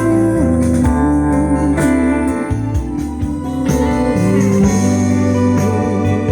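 Instrumental break of a Mandarin pop ballad played through Camber Serie Cent 700 speakers: a gliding lead melody over sustained bass notes, with no singing.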